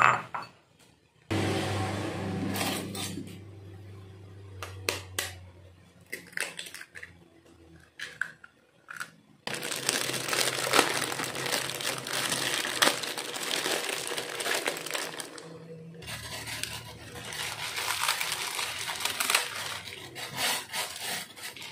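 A ceramic bowl clinks at the start. Then a plastic instant-noodle packet crinkles and crackles as it is handled and torn open; the crinkling is densest in the middle, and the sound comes in segments that start and stop abruptly.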